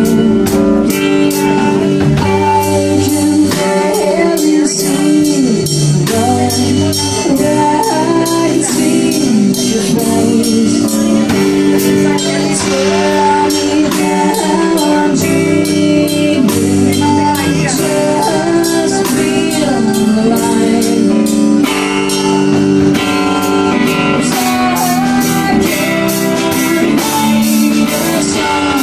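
Live rock band playing a slow song: electric guitar, bass guitar and drum kit keeping a steady beat, with a wavering lead melody over the chords.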